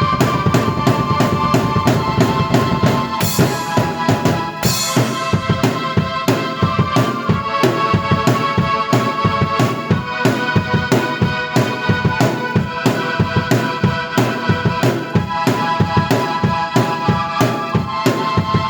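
Drum kit and keyboard playing an up-tempo instrumental together: a steady run of kick and snare hits under held keyboard chords and melody, with two cymbal crashes about three and four and a half seconds in.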